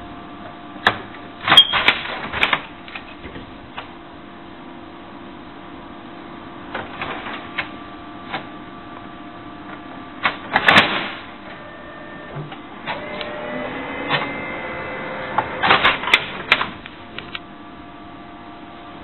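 Brother MFC-9970CDW colour laser printer: its front cover clatters open about two seconds in and shuts with a loud clunk near the middle. The printer's motors then whir for a few seconds, rising in pitch, before the cover is clattered open again, all over a steady low hum.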